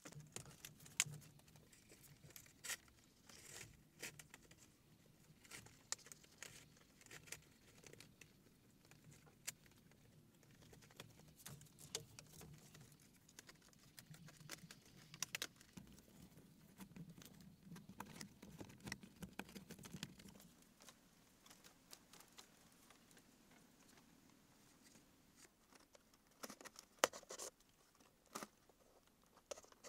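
Scattered light clicks, taps and rustles of dry bamboo and palm-leaf panels being handled and fitted by hand, a door panel and then a small window frame. A faint low hum runs under them and fades out about two-thirds of the way through.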